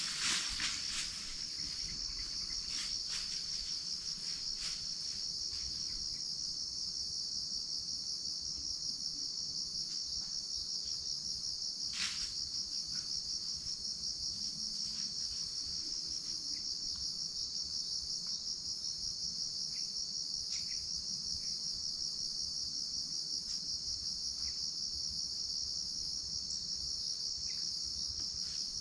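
A steady, high-pitched insect chorus drones without a break, with a fine fast pulse. A few faint clicks are scattered through it, one sharper about twelve seconds in.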